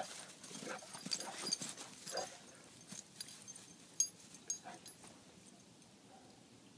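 An English Mastiff and an Irish Terrier playing rough tug of war: a few short dog vocalisations over scuffling and clicking, quieting after about five seconds.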